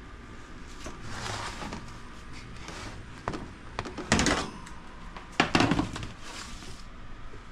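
Metal sheet pan of baked cookies taken off the pulled-out oven rack and set down on the stovetop: a few clanks and thunks of metal on metal, the loudest a little past halfway.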